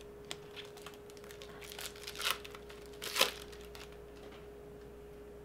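Crinkling and rustling of Topps baseball cards and their pack wrapper being handled: a run of short crackles, the two loudest about two and three seconds in, over a steady faint hum.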